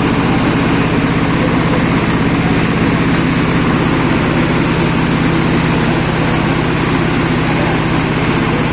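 Diesel engine of a hand-fed silage baler running steadily at constant speed, with a fast, even firing beat.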